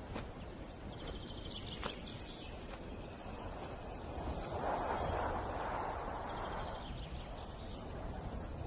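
Outdoor ambience: a steady rush of noise that swells in the middle, with faint series of short, high bird chirps and a few sharp clicks.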